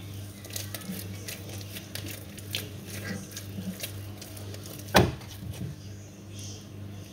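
Hands smoothing and turning an oiled ball of bread dough, with small soft pats and clicks, and one sharp knock about five seconds in. A steady low hum runs underneath.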